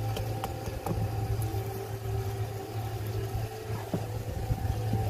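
Steady low hum of an engine running, with a few faint taps.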